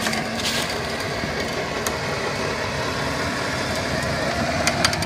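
A 1997 Ford Explorer's engine running steadily at idle while the truck sits stuck in mud.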